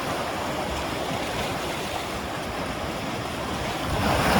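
Gentle surf washing onto the shore, a steady rush of breaking waves that swells louder near the end.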